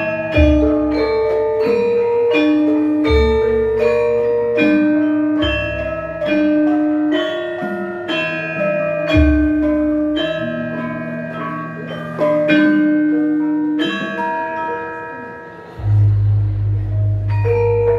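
Javanese gamelan ensemble playing: bronze metallophones strike a melody of ringing notes about once a second over low gong strokes every few seconds. A deep gong stroke comes in near the end and hums on.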